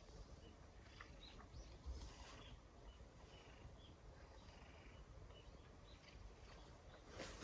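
Faint, scattered little wet clicks and smacks of cats licking churu, a lickable puree treat, over a quiet outdoor hush, with one sharper click at the very end.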